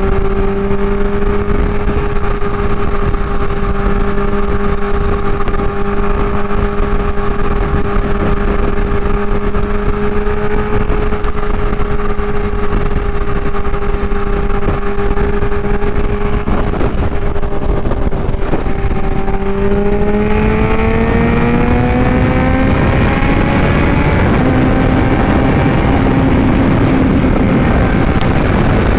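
Kawasaki Ninja H2's supercharged inline-four with a Vandemon exhaust, running at a steady cruising speed, then rising in pitch as it accelerates about two-thirds of the way through and holding the higher note. Heavy wind rush runs under the engine sound.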